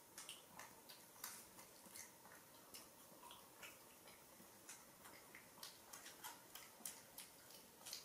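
Faint, irregular small clicks and smacks, a few a second, from a macaque and a person chewing a snack.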